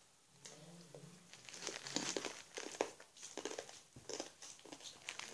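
Satin ribbon rustling and crinkling as it is handled, with irregular small clicks and taps, busier from about a second and a half in.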